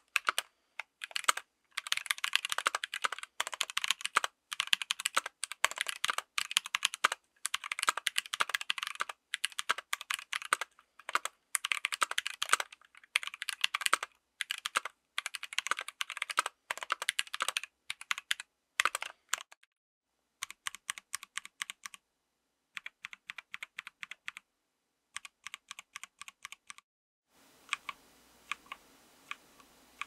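Typing on a 60% mechanical keyboard with stock Tecsee Purple Panda tactile switches and GMK Mitolet keycaps: a fast, dense clatter of keystrokes. After about 20 s it gives way to short runs of quieter, evenly spaced key presses. Near the end come single key presses one at a time over a faint hiss.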